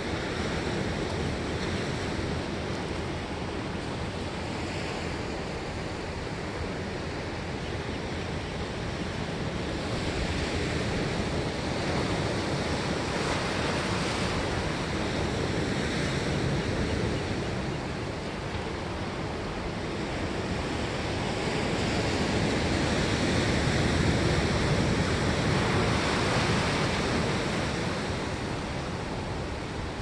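Ocean surf: waves breaking and washing in a continuous rushing wash that swells louder and eases off over several seconds at a time.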